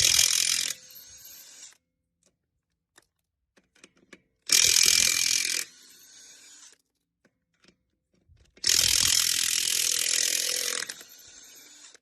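Makita XWT17 18V cordless impact wrench run in three bursts, the hammer mechanism rattling loudly, each burst dropping to a quieter spin for about a second before it stops. The third burst is the longest, about two seconds.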